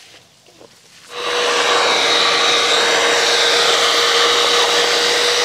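Cordless drill starting up about a second in and running at a steady, even speed as it bores a pilot hole into a wooden board, pre-drilling so the board doesn't split.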